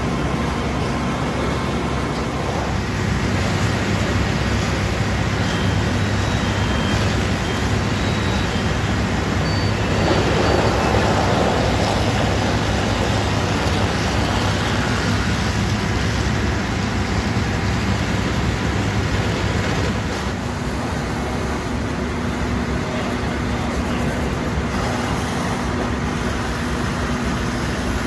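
Fire apparatus engine running steadily to power the pumps, with the hiss of hose streams spraying; the spray gets louder for a couple of seconds about ten seconds in.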